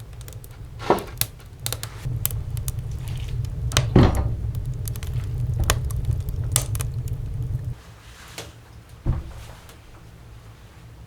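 Scattered knocks and clatter of objects being handled in a small room, the strongest about four seconds in, over a low rumble that cuts off suddenly about eight seconds in.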